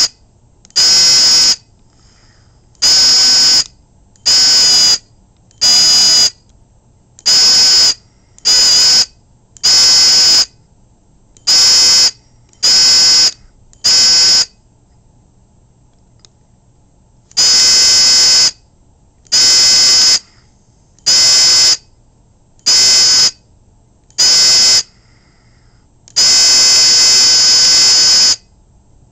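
Electric buzzer in a small homemade wooden alarm box, switched on and off by hand to sound fire-alarm codes. It gives short buzzes of about a second each, broken by a pause of about three seconds near the middle, and one longer buzz of about two seconds near the end.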